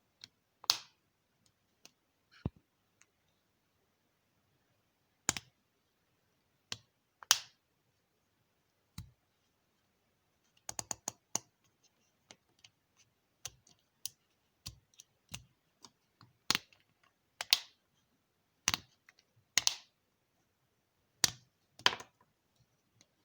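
Marker pen cap being clicked shut again and again: single sharp clicks at irregular gaps, with a quick run of several clicks about ten to eleven seconds in.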